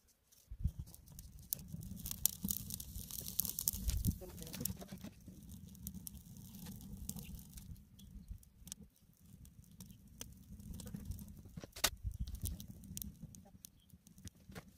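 Dry grass and sticks crackling as they catch fire inside a rusty steel-drum stove, with sharp snaps and pops scattered irregularly throughout, over a steady low rumble.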